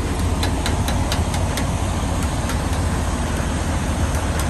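Semi truck's diesel engine idling with a steady low hum, with a quick run of sharp light clicks about half a second to a second and a half in.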